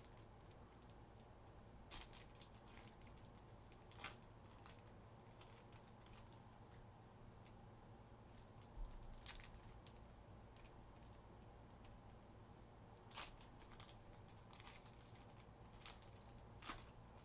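Faint, scattered crinkles and ticks of trading-card packs and cards being handled and opened, over a low steady hum.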